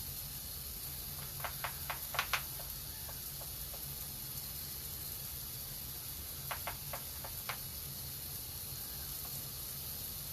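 Fine water mist spraying with a steady hiss, broken twice by quick runs of sharp clicks, about a second and a half in and again around seven seconds.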